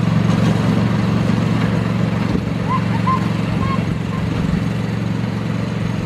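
Engine of a 7¼-inch gauge miniature railway locomotive running steadily as the train draws away, a low drone that fades a little. A few short high chirps come in the middle.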